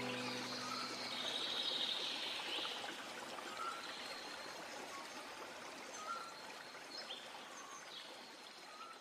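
Last held notes of music die away about a second in, leaving a steady rushing of flowing water with scattered short bird chirps, which slowly fades down.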